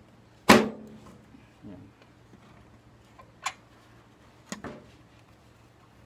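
Knocks and clicks from a microwave oven's control panel being worked loose by hand: one loud, sharp knock about half a second in, then a few lighter clicks and taps.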